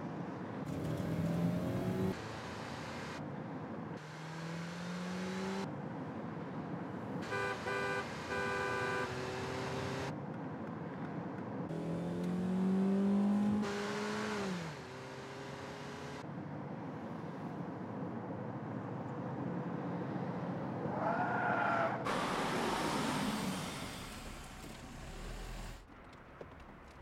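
Car engines revving and pulling away as cars speed along a road, with rising and falling engine pitch. A held blaring tone sounds for about two seconds near the middle, and a squeal comes near the end as the cars brake to a stop.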